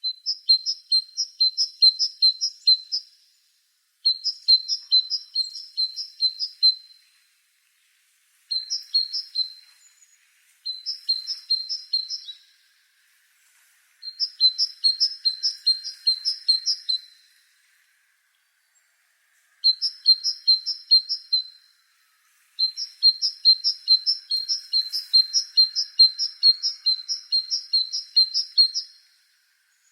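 A bird chirping in quick series of short, high chirps, about three or four a second. The chirps come in phrases a few seconds long separated by brief pauses, and the longest run comes near the end.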